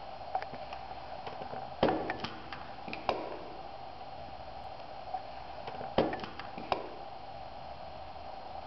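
Small sharp clicks and taps from handling a makeup brush and an eyeshadow palette, about five of them, the loudest about two and six seconds in, over a steady background hum.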